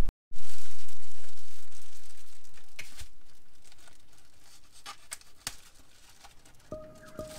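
Thin clear plastic bag crinkling and tearing as a knife slits it open and hands pull it off the part, with a few sharp clicks and rustles. Music with a steady tone comes in near the end.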